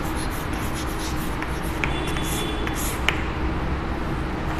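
Chalk scratching on a chalkboard as a word is written and underlined, with sharp taps of the chalk about two and three seconds in; the writing stops shortly after.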